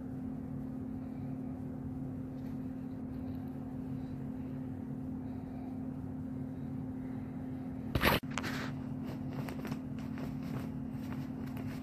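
Steady low hum, broken about eight seconds in by one loud, brief crackle. After it come light scratching and rustling as the cats paw at a fabric play tunnel on carpet.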